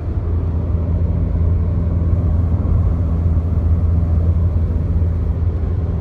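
Steady low road-and-engine drone inside a sound-insulated compact sedan's cabin at 120 km/h, heard close to the footwell floor. Little engine sound comes through the added insulation.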